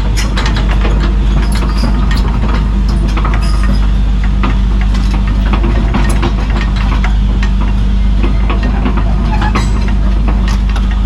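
Diesel excavator running under load with frequent metallic clanks and clicks from its moving steel tracks, whose chains are badly worn.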